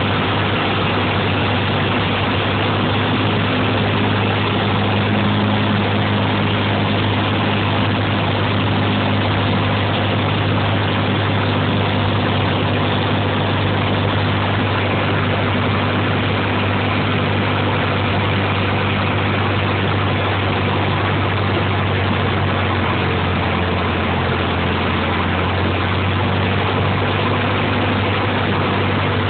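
Small aircraft's engine and propeller droning steadily inside the cockpit during the night approach to land, with a low hum that drops a little in pitch in the last few seconds.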